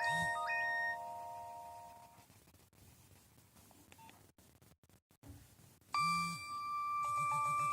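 Nokia 3108 mobile phone playing its ringtones through its small built-in speaker. One ringtone's last electronic notes stop and fade out over the first two seconds. After a pause of about three seconds the next ringtone starts about six seconds in, with a held tone over a low pulsing pattern.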